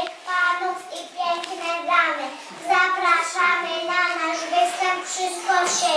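Young children singing a song, holding steady notes that change step by step.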